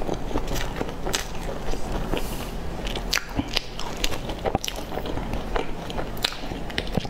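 Close-miked chewing and mouth sounds of someone eating a bread bun with a crumbly crust, with many small clicks and crackles scattered through.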